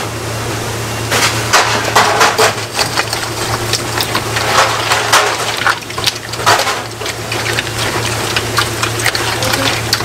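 Gloved hands mixing a large stainless steel bowl of cold noodles with thick chili sauce and young radish kimchi: a run of irregular wet squelching and slapping. A steady low hum sits underneath.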